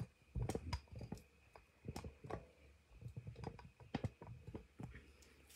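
Handling noise from a camera being moved and settled into position: a rapid, irregular series of light clicks and knocks.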